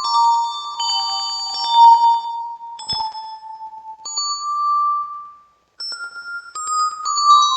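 Yamaha PSR-36 keyboard playing high, bell-like held notes through the Vivlex Time Maker pedal's ping-pong delay, the notes overlapping with their repeating echoes. There is a sharp click about three seconds in, and the sound cuts out briefly a little past halfway before the notes resume.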